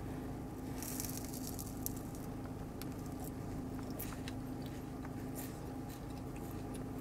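A person chewing a crunchy caramel-and-coconut wafer candy bar, with scattered small crunches, over a steady low hum.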